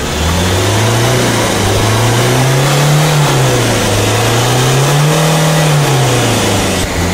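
2007 Kia New Sorento with about 290,000 km, its engine revved up slowly and let back down twice, heard at the tailpipe. This is a free-revving run to show the exhaust smoke.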